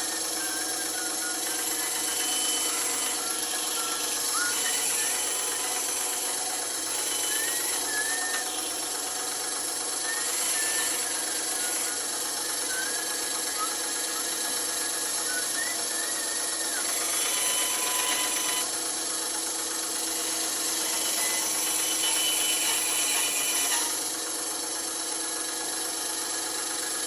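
Bandsaw running steadily while cutting wood, the hiss of the blade through the wood swelling in stretches as the piece is fed and turned.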